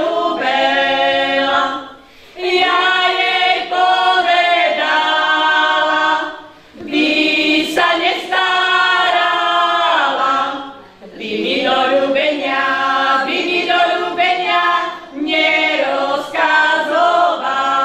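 Women's folk group singing a Slovak folk song a cappella together, in phrases of about four seconds separated by short breath pauses.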